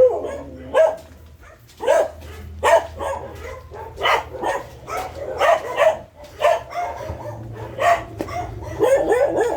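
Dogs barking in kennels, short barks coming about once a second.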